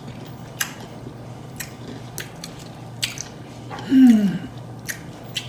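Close-up mouth sounds of eating: chewing and lip-smacking with scattered wet clicks. A short falling vocal sound about four seconds in.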